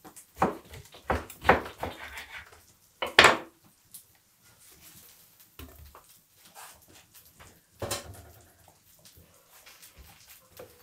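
Kitchen knife cutting fish on a wooden cutting board: a run of sharp knocks, the loudest about three seconds in. Later come a few sparser knocks and clinks as the fish pieces go into a stainless steel bowl.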